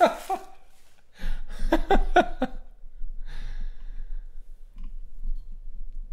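A man's voice: a short untranscribed vocal sound about a second in, then a breathy exhale about three seconds in, followed by a low background hum.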